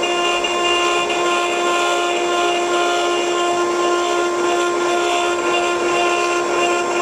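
CNC wood turning lathe running with a steady whine under a continuous noisy hiss, unchanging throughout.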